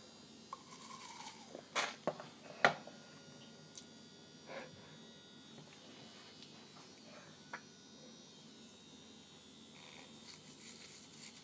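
Electric toothbrush buzzing steadily while teeth are brushed, with a few sharp knocks about two to three seconds in.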